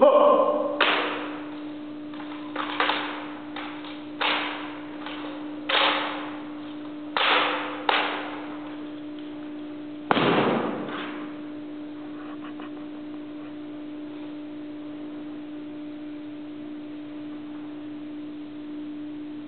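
Drill rifles worked through the manual of arms: about eight sharp slaps and clacks of hands on rifles over the first ten seconds. The loudest and deepest comes about ten seconds in, as the rifle butts are grounded on the floor at order arms. After that there are no more strikes, only a steady hum.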